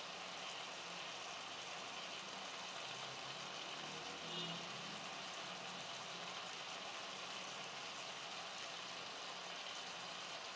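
Steady, faint sizzling hiss of a snake gourd and chana dal kootu cooking in a pan, with a short faint sound about four seconds in.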